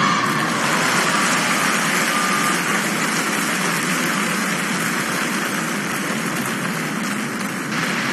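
Arena crowd applauding and cheering after a gymnastics vault, a steady wash of clapping and voices.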